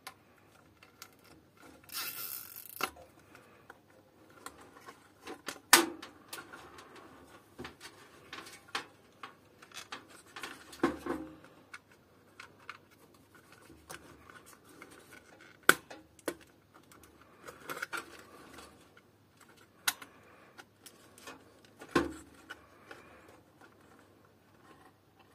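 Plastic zip ties being threaded through the cooler-mount holes of a motherboard and handled: scattered clicks and taps, with a short rasp about two seconds in.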